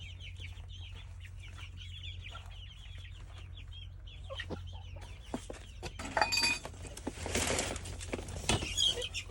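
Young chickens peeping, a rapid run of short, high, falling chirps. About six seconds in they give way to louder rustling, clicks and clatter.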